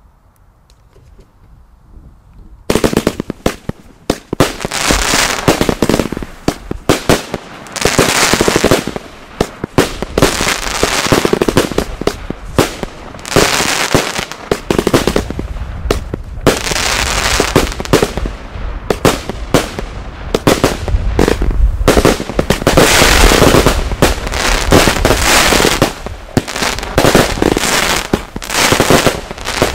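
A fireworks battery firing: after about two and a half seconds of low background, a dense, rapid run of bangs and crackling starts and keeps going with hardly a break.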